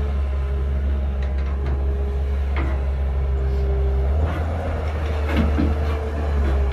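Heavy earthmoving machine's diesel engine running with a steady deep rumble, its note shifting about four seconds in, with a few short knocks.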